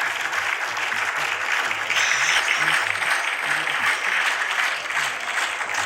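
Crowd applause: many hands clapping together in a dense, steady patter that swells slightly about two seconds in.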